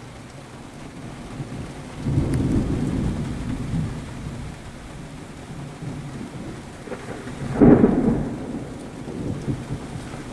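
Thunder rumbling in two rolls: a long low rumble starting about two seconds in, then a louder, sharper peal about three-quarters through that trails off, heard from inside a car.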